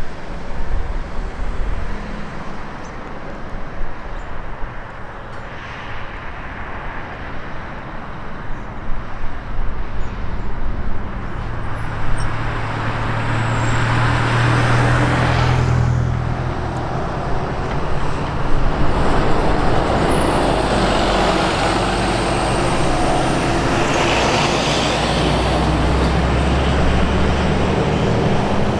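Passing road traffic, city buses among cars and trucks: engine drone and tyre noise that swell as vehicles go by, louder in the second half.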